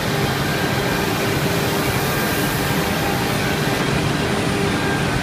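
4-axis CNC router running: a steady machine noise at an even level, with a few faint steady tones.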